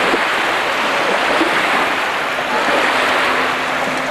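Small lake waves washing up on a sandy shore, a steady rushing noise.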